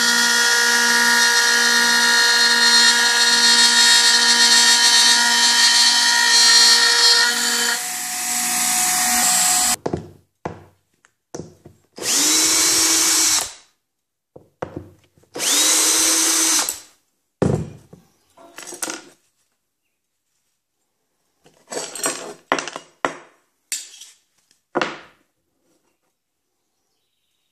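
Router spindle running steadily with a high whine, then cutting off sharply about ten seconds in. After that a cordless drill backs out the hold-down screws from the freshly cut aluminum part: two runs of about a second and a half, then a string of short bursts.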